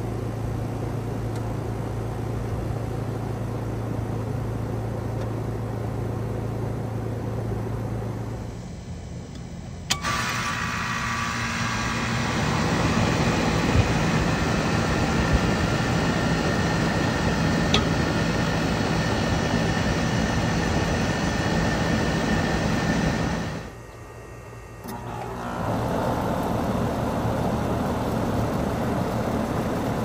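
Outdoor air-conditioner condensing units running: first a steady compressor hum with the fan. Then, after a short break, a sharp click about ten seconds in as another unit starts, its compressor and fan coming up over a couple of seconds and settling into steady running. Near the end, after another short break, a third unit runs steadily.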